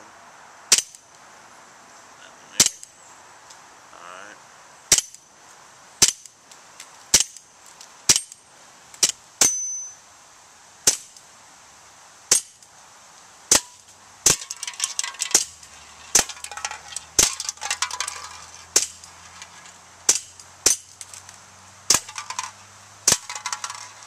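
Remington 1911 RAC CO2 blowback BB pistol firing about twenty single shots at an irregular pace, one every one to two seconds, each a sharp pop.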